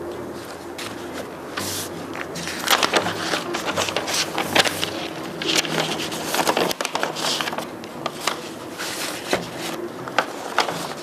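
Wrapping paper rustling and crinkling as it is folded and creased around a gift box, in irregular crackles that come thickest in the middle.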